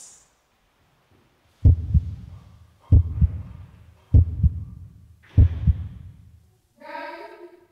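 Heartbeat sound effect: four slow double thumps, about one every 1.2 seconds, each a quick lub-dub pair. A short call from a voice follows near the end.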